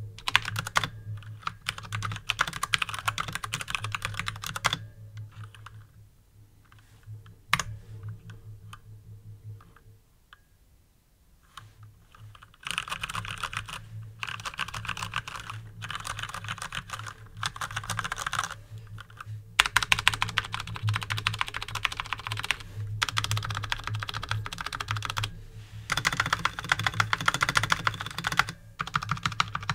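Typing on a Durgod Taurus K320 mechanical keyboard with Cherry MX Brown switches, set on a desk mat: fast runs of keystrokes, with a pause of several seconds about a fifth of the way in where only a few scattered keys are pressed, then steady typing again with a few short breaks.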